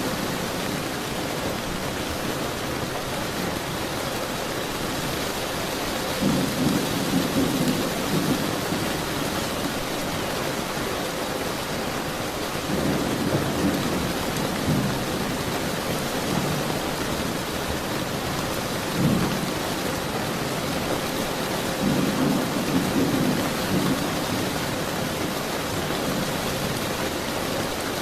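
Steady rain falling, with thunder rumbling low four times, the last two about six seconds apart and the third one short.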